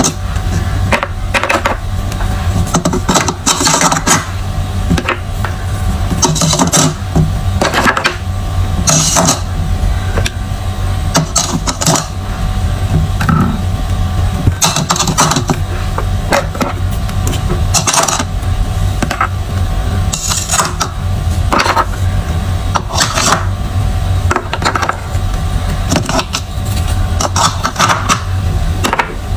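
Lipstick tubes clicking and knocking against a clear acrylic lipstick rack as they are slotted in, a short sharp click every second or two, over a steady low hum.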